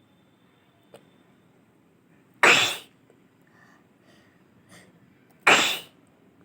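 A woman sneezing twice, about three seconds apart, each sneeze a sudden loud burst that fades within about half a second.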